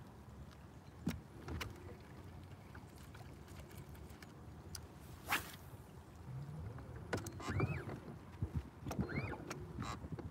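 Angler handling a spinning rod and reel on a bass boat deck: scattered clicks and knocks, and one brief whoosh about halfway through as the rod is cast. Near the end come clustered knocks and short squeaks.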